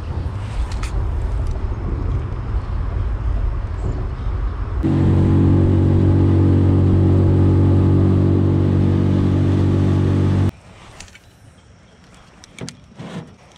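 Low rumbling noise, then an engine's steady drone for about six seconds that cuts off abruptly, leaving quiet with a few faint clicks.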